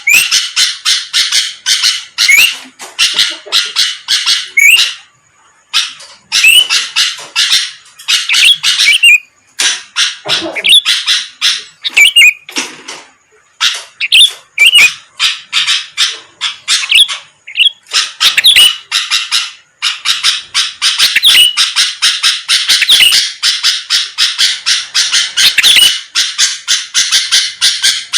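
Sooty-headed bulbul (kutilang) singing energetically, a loud rapid chatter of quick calls. It comes in bursts with short pauses, then runs without a break through the last third.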